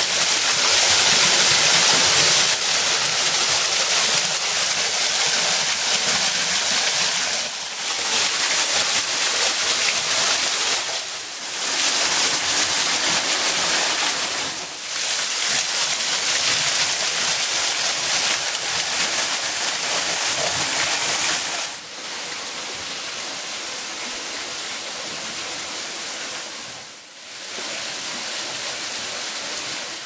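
Small waterfall running and spattering through its partly frozen ice curtain, a steady hiss of falling water. It dips briefly a few times and turns quieter for the last third.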